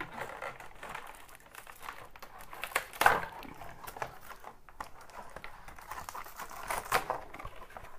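Clear plastic blister packaging crinkling and crackling as it is handled and pulled away from its cardboard backing card, with sharper crackles about three seconds in and again near the end.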